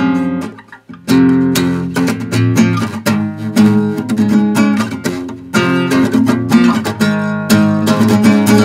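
Acoustic guitar being strummed, chords struck in quick repeated strokes, with a brief pause about a second in before the strumming carries on.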